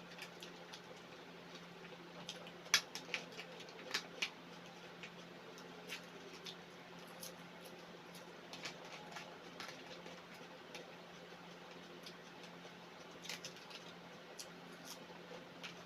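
Close-up eating sounds: scattered soft clicks and smacks of someone chewing food, the sharpest about three seconds in, over a steady low hum.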